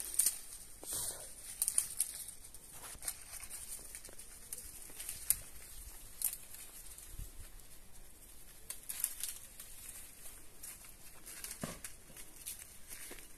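Dry bean plants rustling and crackling as they are handled, with scattered small snaps at irregular moments.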